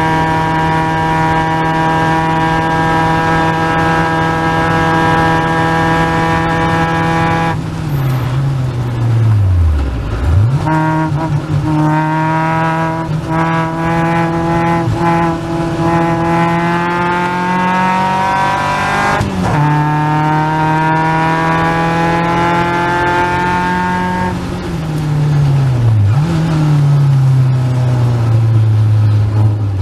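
Caterham Seven's 2.3-litre Ford Duratec four-cylinder engine at race pace. It holds one steady note, drops steeply in pitch about eight seconds in, then climbs steadily. It falls and rises again twice more later.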